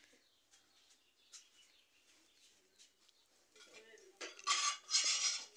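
Metal spoon clinking and scraping against a clay bowl: a few faint taps at first, then a louder stretch of scraping about four seconds in.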